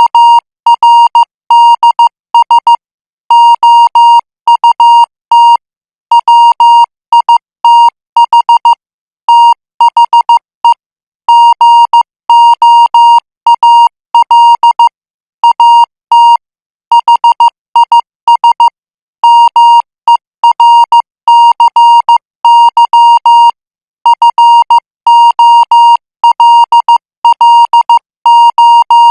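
Morse code practice signal sent at 14 words per minute: a single steady beep tone keyed on and off in short dots and longer dashes, grouped into characters with brief gaps between.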